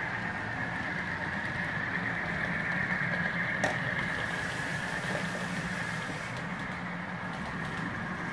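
Model railway locomotive's sound module playing a steady engine rumble through its small speaker, with a constant high whine and a single click about three and a half seconds in.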